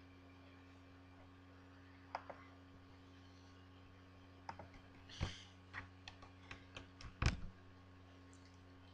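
Scattered clicks and a few heavier bumps from a headset with a microphone being handled and adjusted, most of them between about four and a half and seven and a half seconds in, over a steady low hum.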